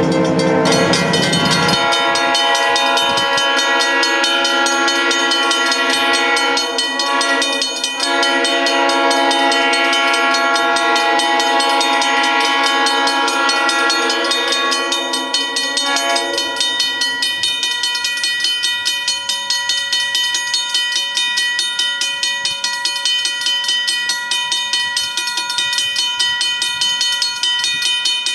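Railroad grade-crossing warning bell ringing rapidly and steadily, while an approaching diesel locomotive's horn sounds in the distance for the crossing. The horn stops about halfway through, leaving the bell ringing alone. A low train rumble dies away in the first two seconds.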